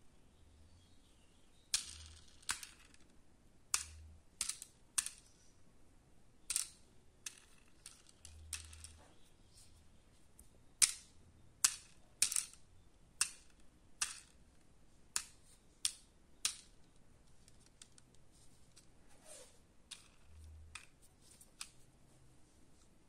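Irregular sharp clicks, about twenty of them at uneven intervals, from a small die-cast toy helicopter with plastic rotor blades being handled and turned in the fingers.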